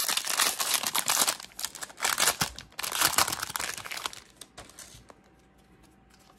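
Foil wrapper of a 2021 Bowman Draft baseball card pack crinkling and tearing as it is ripped open and the cards slid out. The crinkling stops about four seconds in, leaving only faint ticks of the cards being handled.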